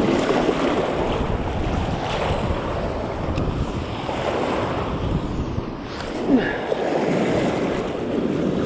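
Choppy sea water sloshing and washing around close to the microphone, with wind buffeting it; one short louder knock about six seconds in.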